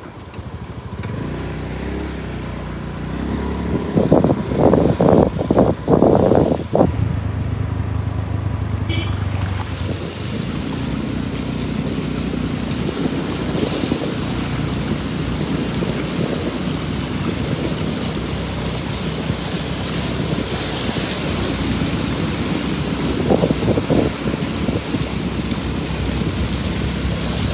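A vehicle's engine running as it drives, with loud gusts of noise a few seconds in, then a steady rushing hiss of water as it drives through floodwater covering the road.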